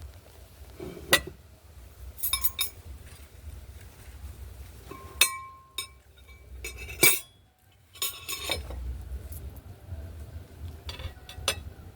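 Tableware being handled during a meal: several separate clinks and knocks, a few of them with a short ringing tone, over a low rumble.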